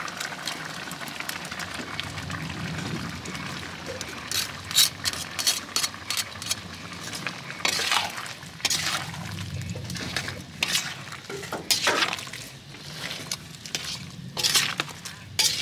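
Irregular scrapes and clinks of a metal utensil against a cooking pot as a stew is stirred, over a steady rush. The first few seconds are steady; the sharp knocks start about four seconds in and come every second or two.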